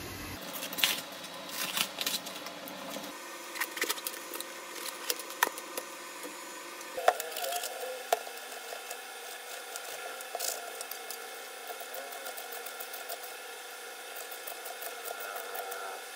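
Chopped beans frying in oil in a pan: a steady sizzle with scattered crackles and a few louder clicks, typical of stirring.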